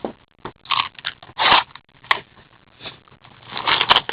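A sealed box of hockey trading cards and its packs being opened by hand: a run of short, irregular crinkling, tearing and scraping noises, with a sharp click about two seconds in.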